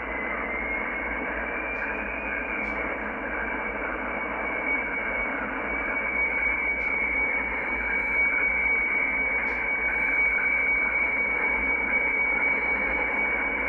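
Yaesu FTdx10 shortwave transceiver receiving the German DWD weatherfax transmission near 15,986 kHz: a steady high tone over band hiss. The tone's pitch shifts slightly in the first couple of seconds as the tuning knob is turned, then holds.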